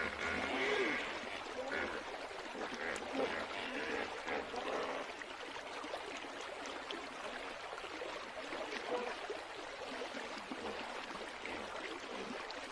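Steady running water, like a stream or trickle.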